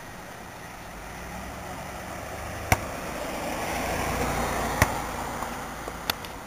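A passenger car driving slowly past: a low engine and tyre sound that swells to a peak about four seconds in, then fades. Three sharp knocks cut through it, the first the loudest.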